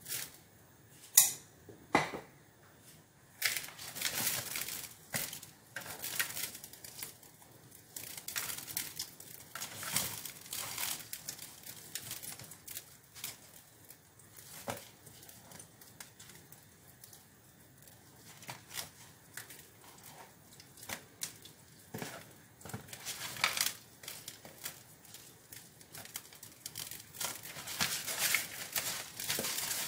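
Hands rubbing salt into raw chicken pieces in a plastic bowl: irregular rustling and scraping handling noises, with a couple of sharp knocks about a second in.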